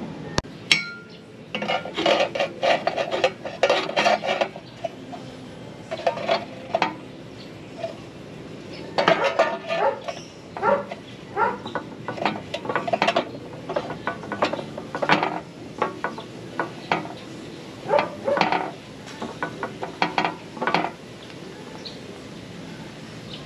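Metal parts of a homemade welding clamp jig clinking and knocking as it is handled and adjusted, in irregular runs of rapid clinks with short metallic ringing.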